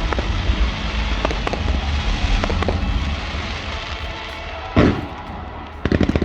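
Fireworks display: a continuous low rumble of shell bursts with scattered sharp pops that eases off, then one loud bang almost five seconds in and a rapid string of crackling reports near the end.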